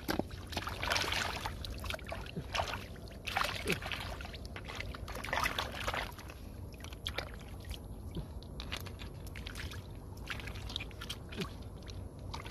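Hands splashing and sloshing in shallow muddy water while scooping up mud, in irregular strokes that come thick and fast in the first half and more sparsely later.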